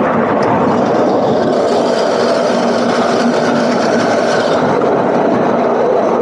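Narrow-gauge train running along its track, heard from aboard a passenger carriage: a steady rumble and rattle of the wheels and carriages.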